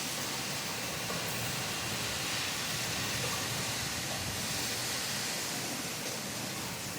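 Steady rain, an even hiss without breaks, with a few faint drop ticks.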